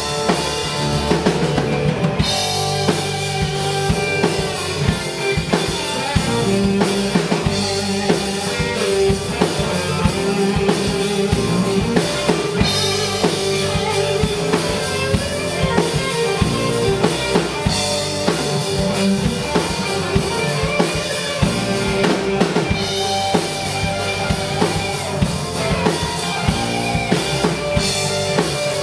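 Live band playing amplified through the PA: two electric guitars, an electric bass and a drum kit keeping a steady beat.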